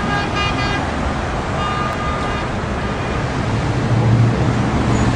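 Steady road traffic noise with an even rushing haze, broken by two short stretches of high pitched tones in the first two and a half seconds; a low hum swells slightly about four seconds in.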